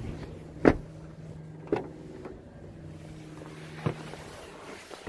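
Three dull knocks over a faint steady low hum: the first and loudest under a second in, the next about a second later, the last near four seconds. They are bumps from climbing out of the back seat of a 2018 Toyota 4Runner and handling its doors.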